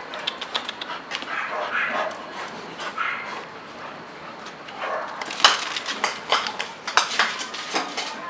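Dogs play-fighting: dog vocal sounds mixed with many sharp clicks and clinks, which grow louder and denser about five seconds in.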